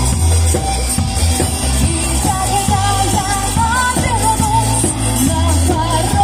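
Pop-rock song with singing over a steady bass and drum beat.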